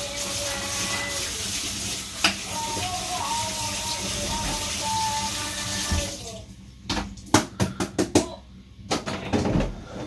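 Water running from a kitchen tap as a steady hiss, shut off abruptly about six seconds in, followed by a series of sharp knocks and clatter of kitchen items.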